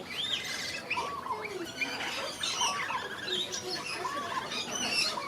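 Many parrots chattering and squawking together in an aviary: dense overlapping chirps, with one arched call repeating every second or two.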